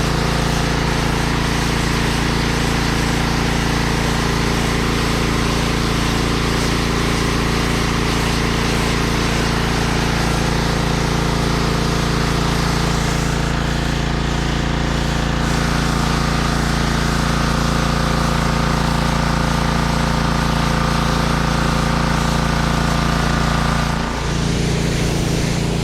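Pressure washer running steadily while washing concrete, with a brief dip near the end.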